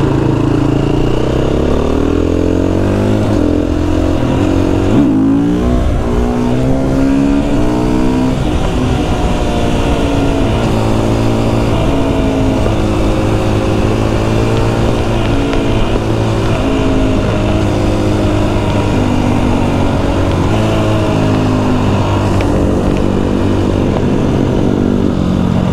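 Husqvarna FE 350 enduro motorcycle's single-cylinder four-stroke engine on the move, its pitch climbing and then dropping back again and again as it accelerates and shifts through the gears.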